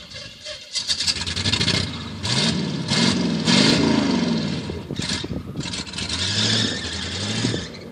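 Pickup truck engine under load on a rough desert track, revving up and easing off several times, with its pitch rising and falling.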